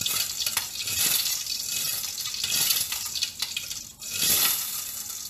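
Hot cooking oil sizzling and spattering with a dense crackle. Water from condensation on the pot lid is dripping into the hot oil and making it pop. The sizzle briefly dies down about four seconds in, then comes back.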